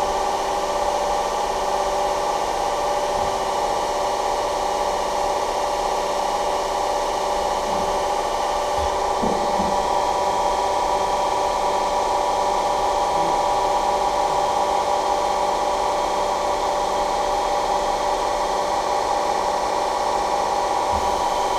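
Special rolling machine (KZh1844) running steadily: an even mechanical hum with several steady tones over a hiss. There are a few faint knocks, about nine seconds in and near the end.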